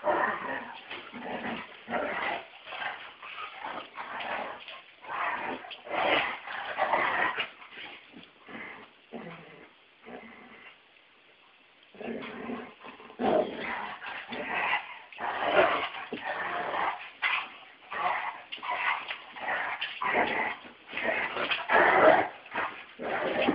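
Two dogs play-fighting, giving short, rapid vocal bursts with yips and barks. There is a brief lull about ten seconds in, then the bursts start up again.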